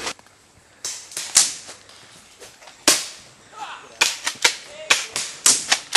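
Airsoft guns firing single shots: about ten sharp cracks, a few spread out at first, then coming faster in the last two seconds.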